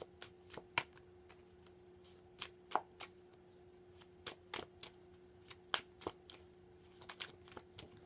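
A tarot deck shuffled by hand: light, irregular card snaps and slaps, a few a second.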